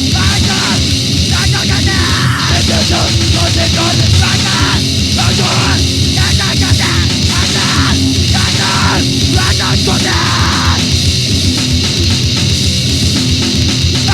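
Grindcore/power-violence band playing at a steady loud level on a demo-tape recording: fast, dense drumming under heavily distorted guitar and bass.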